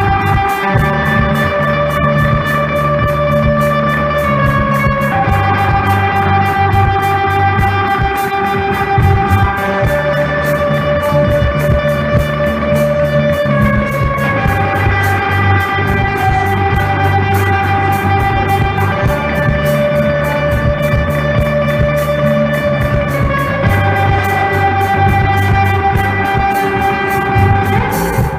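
Guitar-led rock music: held, pitched chords that change about every four to five seconds over a fast, even pulse.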